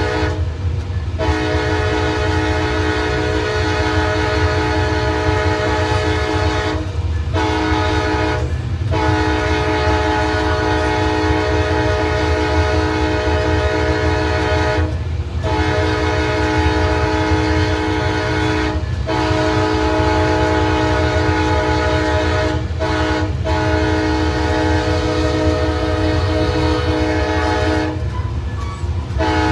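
Diesel locomotive's multi-chime air horn sounding a long series of blasts with short breaks between them, over the steady low rumble of the train.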